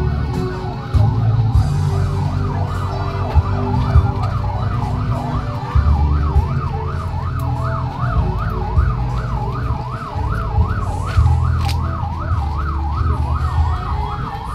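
Electronic siren sounding a fast up-and-down yelp, about two to three sweeps a second, over a low rumble.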